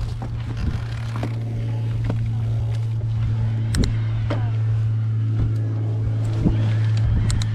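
A steady low mechanical hum, with scattered light clicks and knocks over it.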